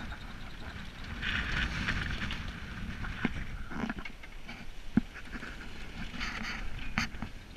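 Wind buffeting the microphone and sea noise aboard a sailing yacht under way in rough water, with hissing rushes about a second in and near the end. A few sharp knocks come through on the boat.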